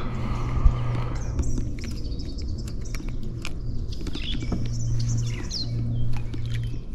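Light clicks and knocks from handling a small pickerel and fishing tackle in an aluminium jon boat, over a steady low hum, with birds chirping a few times.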